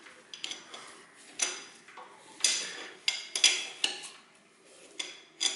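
A hand tool clinking on metal as the engine is turned over by hand to check the timing-belt marks: about ten irregular, sharp metallic clinks, each with a short ring.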